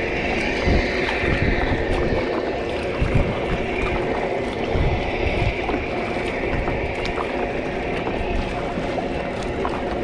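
Water sloshing and splashing around a kayak being paddled out through the surf, with wind gusting on the microphone.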